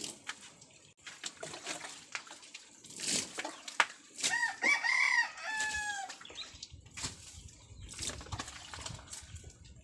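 A rooster crows once, about four seconds in, one call lasting about two seconds, over intermittent splashing of water.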